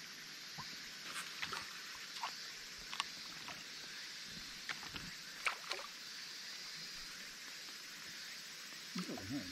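Small water plinks and light lapping around a small inflatable boat: about a dozen brief ticks scattered over the first six seconds, over a faint steady hiss.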